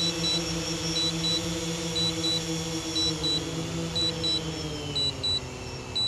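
DJI Phantom 3 Standard's critical low-battery alarm beeping in quick pairs about once a second, over the hum of the quadcopter's propellers. The propeller hum drops in pitch over the last two seconds as the drone auto-lands on critically low battery.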